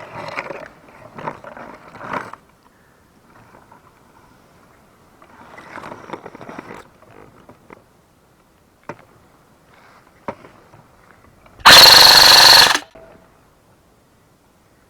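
Airsoft gun firing a loud full-auto burst of about a second, close to the microphone, about twelve seconds in. Before it come softer scattered noises and two sharp ticks.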